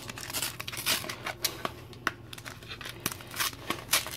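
Plastic and cardboard card packaging being handled and crinkled, with irregular sharp crackles and clicks throughout.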